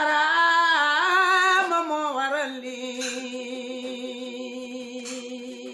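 A solo voice chanting without accompaniment: an ornamented phrase that wavers up and down in pitch for about two and a half seconds, then one long held note.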